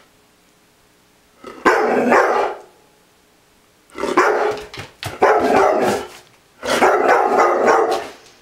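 Young Doberman pinscher giving four snarl-barks, each about a second long with short pauses between: protective alarm barking at a noise at the back door.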